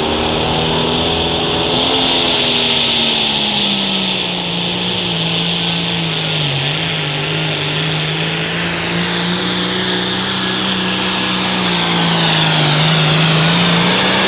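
Turbocharged diesel engine of a limited pro stock pulling tractor running hard under load as it drags the sled, its note holding steady and sagging briefly about halfway through, with a high hiss over it.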